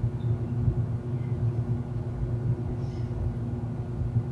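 A steady low rumble with a faint hum, unchanging throughout.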